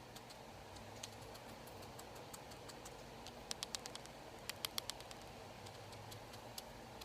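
Guinea pig making a faint, low content purr that comes and goes, with scattered sharp clicks, most of them clustered about halfway through.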